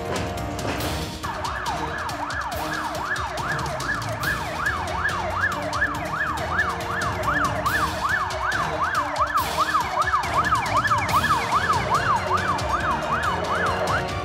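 Emergency-vehicle siren in a fast yelp, its pitch sweeping up and down about three times a second. It starts about a second in and cuts off just before the end, over background music.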